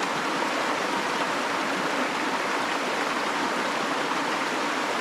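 Creek water rushing over a riffle: a steady, even rush with no breaks.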